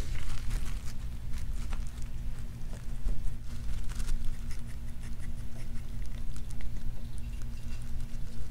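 A pet rat gnawing and chewing a mushroom close up: quick, irregular nibbling clicks, over a low steady hum.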